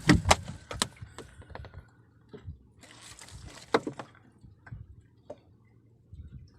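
A series of sharp knocks and clicks, loudest at the start, a short rustling clatter a little past the middle, then a few scattered ticks over a faint low hum.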